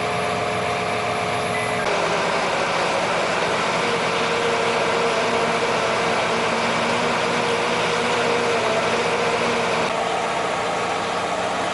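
Vehicle engines running steadily: a forklift's engine for about the first two seconds, then a John Deere tractor's engine, with a steady whine over the engine sound.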